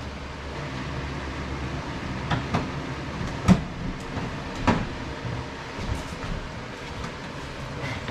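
Scattered knocks and clicks, about five, the sharpest a little before halfway, as the plastic indoor head of a Mr. Cool ductless mini split is pressed and shifted onto its wall mounting bracket. A steady low hum runs underneath.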